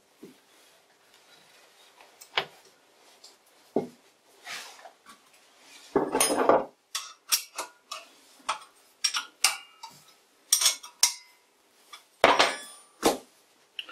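Scattered metallic clinks and knocks from hands working at a vintage lathe's spindle and cone pulley. About six seconds in there is a louder, rough rushing scrape, followed by a run of sharp clicks and clanks. A faint steady hum runs underneath.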